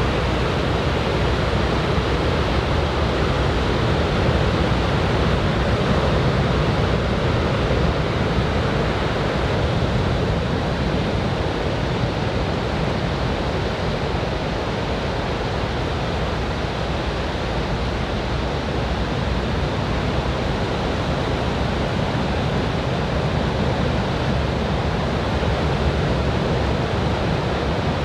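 Surf from a typhoon swell breaking on a sandy beach: a steady, continuous rush of waves with no distinct single crashes standing out.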